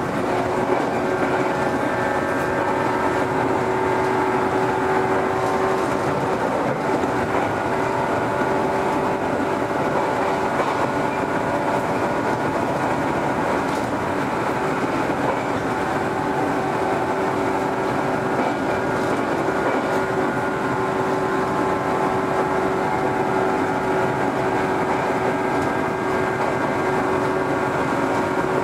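Ainokaze Toyama Railway 413 series electric train heard from inside the carriage, running at a steady speed: a constant rumble with a steady whine of several tones and occasional faint clicks.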